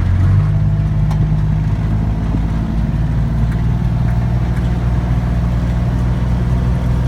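A vehicle engine running steadily: a constant low hum that shifts slightly in pitch about half a second in, then holds even.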